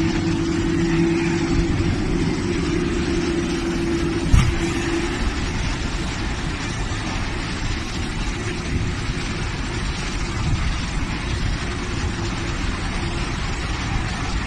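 Steady mechanical rumble and hiss of airport apron noise, with a steady hum that fades out about five seconds in. There is a single sharp knock about four seconds in.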